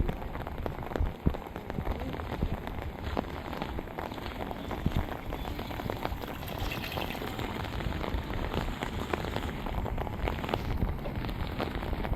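Steady rain falling, with many close, sharp drop hits ticking through a constant hiss.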